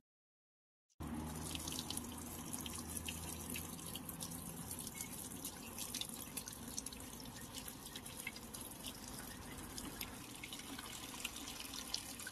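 Washing machine filling its tub with water on a test run, water pouring and splashing in steadily from about a second in. Its water level sensor has just been replaced and it shows no E6 error code.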